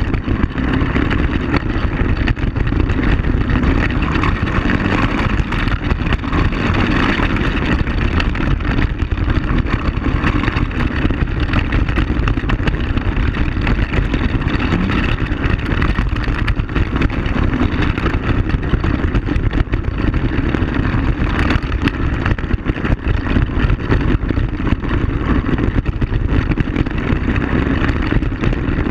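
Quad bike (ATV) engine running steadily while riding over a gravel dirt track, with a dense, constant rumble and many small knocks from the rough ground.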